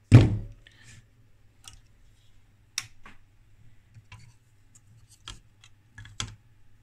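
A small sealed lead-acid battery set down with a thump, then scattered light clicks and taps as a circuit board is handled in its plastic enclosure.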